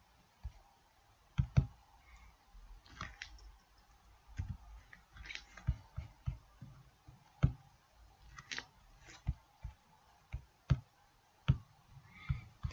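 Faint, irregular computer mouse clicks with small low knocks, about one a second.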